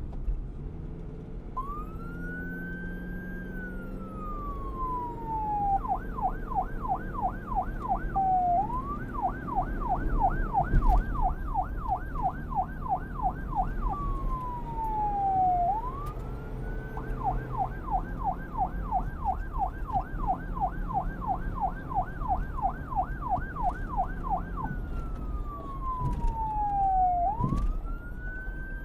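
Emergency vehicle siren switching between a slow wail, which rises and falls over several seconds, and a fast yelp of about three sweeps a second, over a low rumble.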